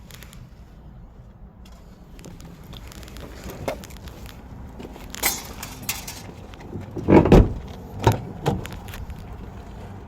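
Handling noises on a wrecked SUV: scattered clicks and rattles, a heavy thump about seven seconds in and two smaller knocks after it, over a steady low hum.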